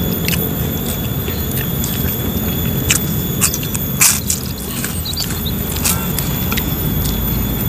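People eating with their hands up close: chewing and lip-smacking clicks, one louder smack about four seconds in, over a steady low rumble.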